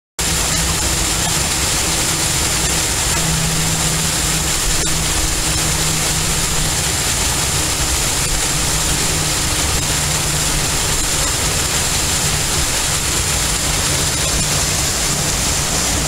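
Small creek waterfall pouring over rocks into a pool: a steady rush of falling water.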